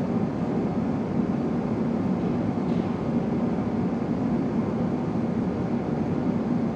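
Steady low rumble with no distinct events, like a machine or engine noise heard at a distance.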